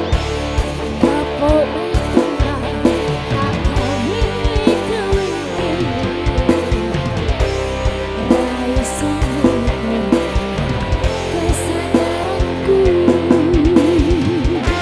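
Live band playing an instrumental passage: electric guitar over keyboard, with kendang hand drums keeping a steady beat and a wavering melodic line near the end.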